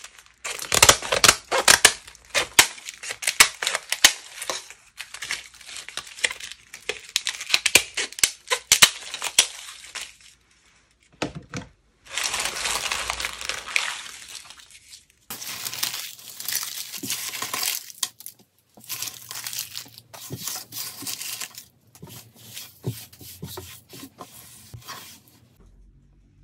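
Brittle sheets of dried slime skin crumpled and crushed in the hands, a dense crackling and crinkling that comes in bursts with short pauses in between.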